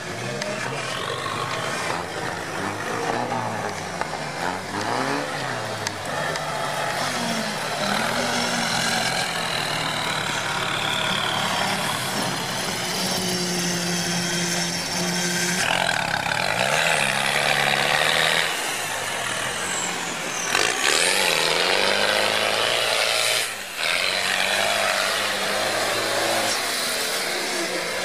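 Engines of off-road UAZ 4x4s on oversized mud tyres running and revving as they drive through deep snow, the engine pitch rising and falling again and again.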